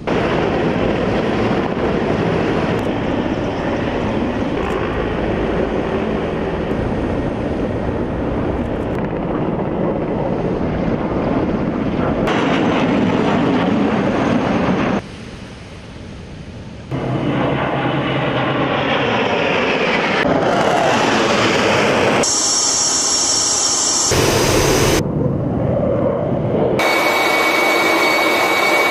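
Jet aircraft engine noise across a series of edited clips that cut abruptly several times, with a quieter stretch near the middle. The later clips carry a high, steady turbine whine over the engine noise.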